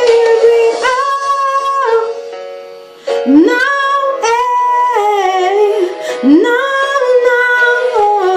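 A woman singing solo, holding long notes that slide between pitches and breaking into melismatic runs. Her voice fades out about two seconds in and comes back a second later with a rising swoop.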